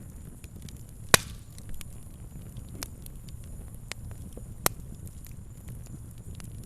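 Fire crackling steadily with a dense scatter of small ticks over a low rumble. Two loud sharp pops stand out, about a second in and again about four and a half seconds in.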